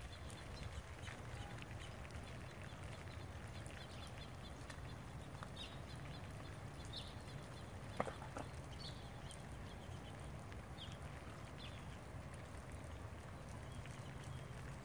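Faint outdoor ambience: a steady low rumble with a few short, high chirps scattered through it and one sharp click about eight seconds in.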